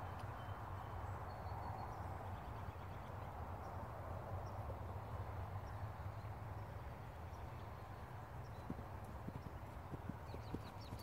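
Friesian-cross horse's hooves thudding on grass, growing distinct in the last few seconds as the horse nears, over a steady low background noise.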